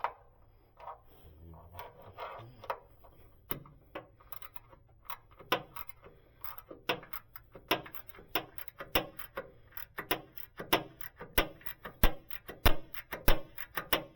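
Irregular clinks and knocks of bolts and hand tools being handled, sparse at first, then busier and louder in the second half.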